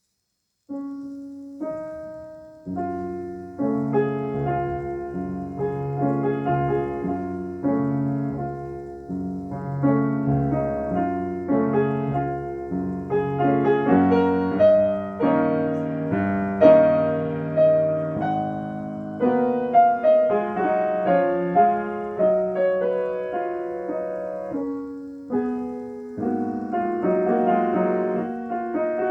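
Solo piano playing classical music. The playing begins about a second in after silence, with single notes, then carries on with melody and chords over a regularly repeating bass.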